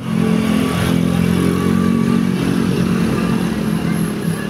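A road vehicle's engine running close by, a loud steady drone that eases off in the last second or so.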